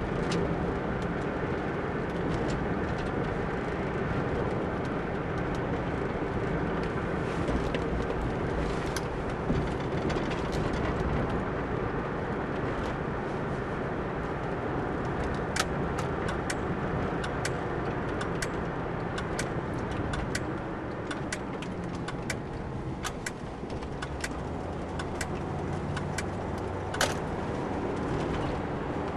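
Steady engine and tyre noise inside the cabin of a moving car, with scattered sharp clicks through the second half.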